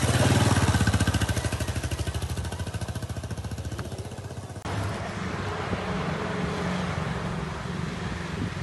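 A motor vehicle's engine running with a rapid, even throb, loudest at the start and fading over about four seconds, then cut off abruptly. After the cut, steady outdoor background noise with a low hum.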